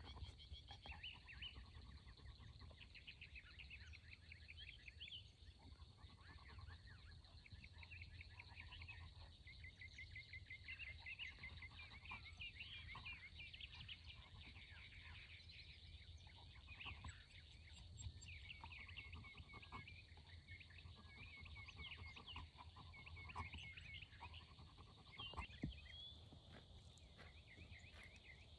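Faint outdoor chorus of songbirds, several birds overlapping in quick chirps and repeated trills, over a low steady rumble. A single sharp knock sounds near the end.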